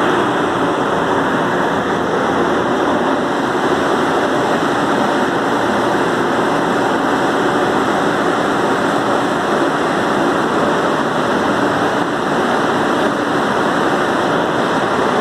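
Coffee box dryer's machinery running: a loud, steady rush of air with a low mechanical hum, the drying fan blowing through a fresh load of wet coffee.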